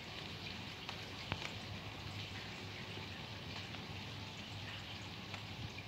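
Steady light rain falling, an even hiss with scattered drops ticking close by, one a little sharper about a second in.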